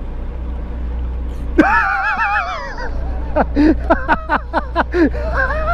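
A man's loud, drawn-out call with a wavering pitch, then a run of laughter in short falling bursts, over the steady low drone of the boat's engine.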